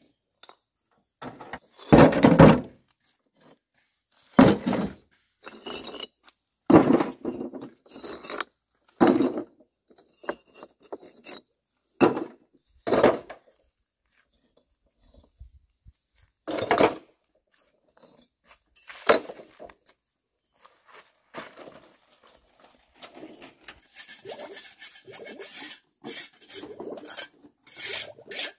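Hollow clay bricks knocking and clinking as they are set one by one into a metal wheelbarrow: about ten separate clunks a second or two apart. Near the end, a softer, more continuous rattling and scraping.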